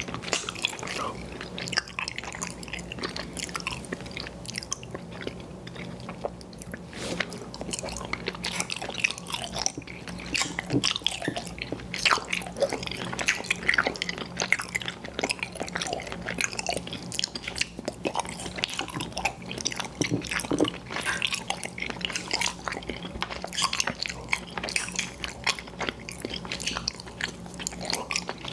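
Close-miked chewing and biting of chewy candy, a stream of irregular wet mouth clicks and smacks.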